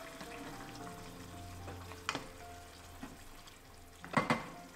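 Tomato soup simmering and sizzling in a small saucepan. There is a single knock about two seconds in, then a louder clatter of a wooden spatula against the pan just after four seconds as the soup is stirred. Soft background music underneath.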